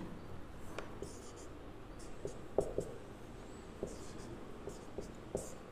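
Marker pen writing on a whiteboard: faint, intermittent squeaky strokes with light taps as symbols are drawn.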